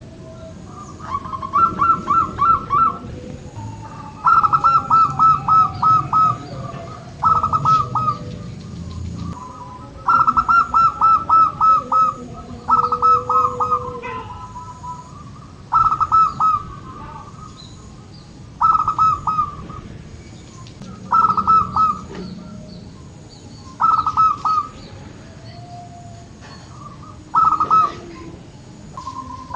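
Zebra dove (perkutut) cooing in its rhythmic song, with about a dozen phrases of quick, rolling notes. Each phrase lasts a second or two and the phrases come a few seconds apart.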